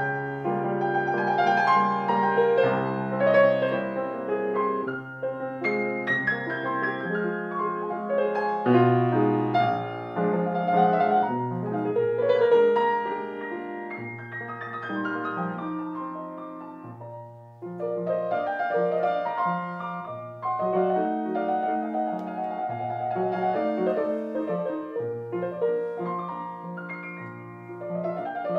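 Grand piano played solo in a classical piece, full chords and running passages, with a brief quieter moment about seventeen seconds in.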